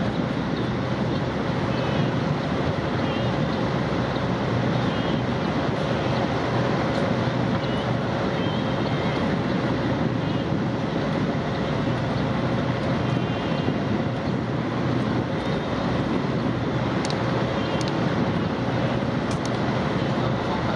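Boat engine droning steadily under wind and water rush.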